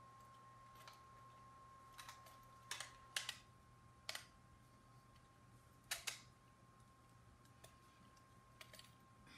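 Faint, irregular clicks and taps of 3D-printed plastic blaster parts and thin rods knocking together as they are handled and fitted, about eight in all, the loudest about three and six seconds in. A faint steady hum runs underneath.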